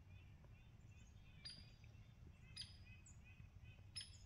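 Near silence: faint outdoor ambience with a low steady rumble and three brief, faint bird chirps spread about a second apart.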